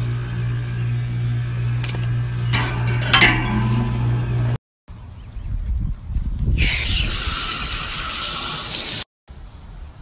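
Air-conditioner condenser unit running with a steady hum, which cuts off abruptly about halfway through. Then a spray hisses loudly for about two and a half seconds as the condenser coil is washed down.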